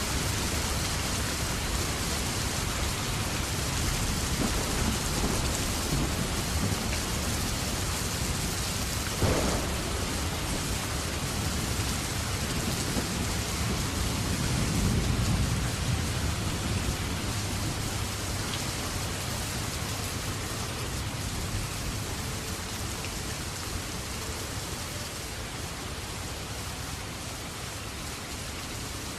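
Steady heavy rainfall, a dense even hiss of rain on surfaces, with a low rumble swelling around the middle and a single sharp tap about nine seconds in.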